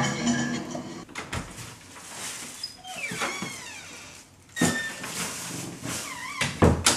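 A closet door being handled: a few high squeaking glides, then two knocks about two seconds apart.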